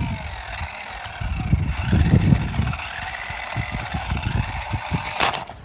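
Electric motor of a toy RC car whining as it is driven, the pitch rising and falling with the throttle, over uneven low rumbling. A short sharp clatter comes near the end.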